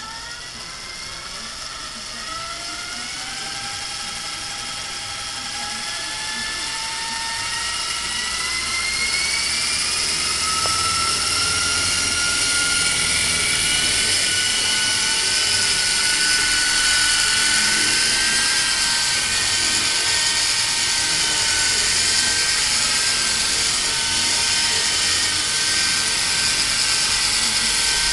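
E-Sky Honey Bee fixed-pitch RC electric helicopter spooling up. Its motor whine rises in pitch and gets louder over the first ten seconds or so, then holds steady at flying speed as the helicopter lifts off and hovers near the end.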